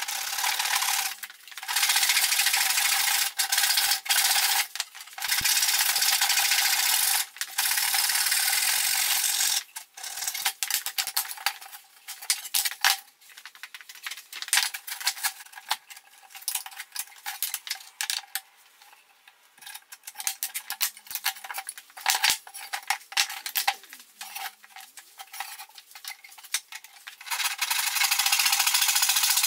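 Handsaw cutting through a pine 2x4 in long rasping strokes, breaking off about nine seconds in. A quieter stretch of scattered light clicks and knocks follows, and sawing starts again near the end.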